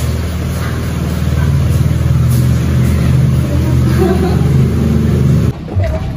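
A motor engine running steadily with a low hum, growing a little louder about a second in, then cutting off abruptly near the end.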